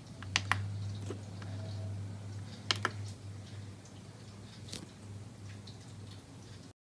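A few sharp clicks of front-panel buttons being pressed on a Roland SP-808EX sampler, in pairs about half a second in and near three seconds, with one more later, over a steady low electrical hum. The sound cuts out abruptly just before the end.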